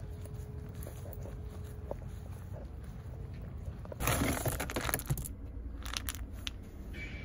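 A plastic scoop digging into a bag of dry dog kibble: a loud crunching rattle starts suddenly about four seconds in and lasts about a second, followed by a few light clicks of kibble. Before it there is only a low steady rumble.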